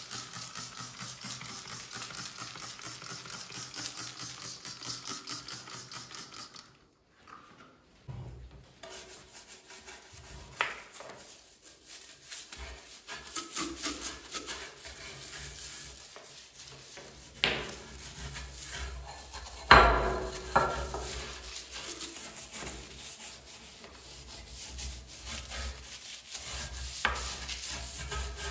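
Quick back-and-forth rubbing of a cloth or brush over a surface, as in wiping or scrubbing during cleaning. It breaks off briefly a quarter of the way in, and a few sharp knocks come through, the loudest about two-thirds of the way through.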